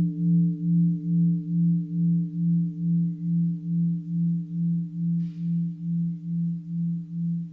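Buddhist mindfulness bell ringing out after a strike: a low steady hum with a few higher tones, pulsing evenly about three times a second and slowly fading.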